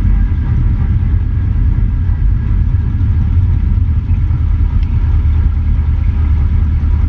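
Cessna 150's four-cylinder piston engine running steadily at low power while the plane rolls out after landing, heard from outside under the wing as a loud, even rumble.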